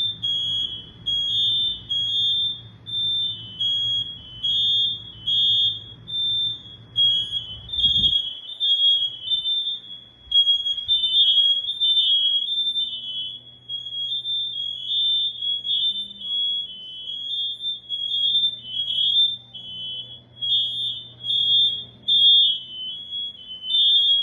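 Several household smoke alarms beeping nonstop at a high pitch, their beeps overlapping out of step with one another.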